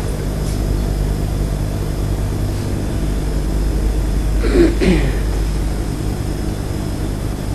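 Steady low electrical hum made of several even tones, with a short falling vocal sound about four and a half seconds in.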